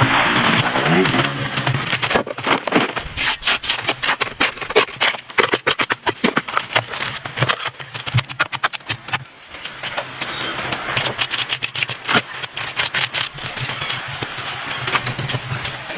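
Tools working wood: rapid, irregular knocking and clicking, over a steady low hum.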